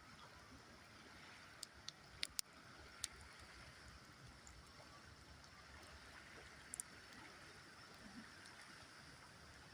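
Campfire wood giving a few sharp crackling pops, mostly about two seconds in and once more near the end, over a faint steady rush of river water.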